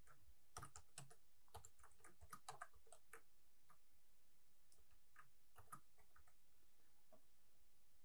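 Faint computer keyboard typing: a quick run of keystrokes in the first few seconds, then scattered single key presses.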